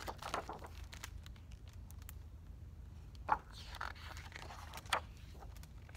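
Pages of a large paper picture book being turned by hand: a rustling sweep of paper at the start, then more rustling with two sharp clicks about three and five seconds in.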